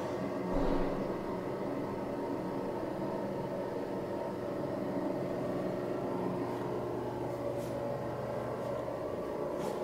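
A steady droning hum with several held tones over a faint hiss.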